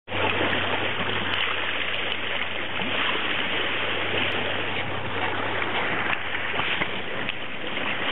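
Water rushing and splashing along the bow of a moving boat as a steady hiss, with a steady low hum underneath.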